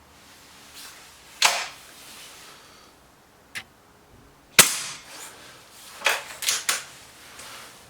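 BSA Lightning SE air rifle being fired in a shooting gallery: a string of sharp cracks and clacks, the loudest about four and a half seconds in, then three quick ones near the end.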